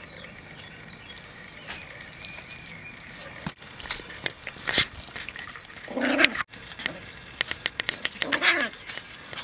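Jack Russell puppy whimpering in two short cries, about six and eight and a half seconds in, among scattered sharp clicks and scuffles.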